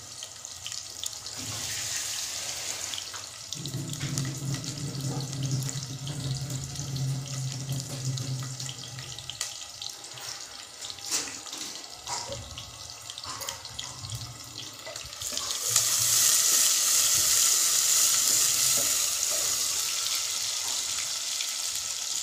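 Sliced onions sizzling and crackling in hot oil in a pressure cooker, frying until they change colour. The sizzle grows clearly louder about two-thirds of the way through.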